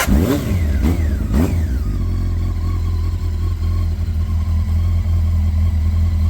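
Honda CBR900RR inline-four engine catching as the starter stops. It is blipped three times in the first second and a half, then settles into a steady idle on its freshly balanced carburettors.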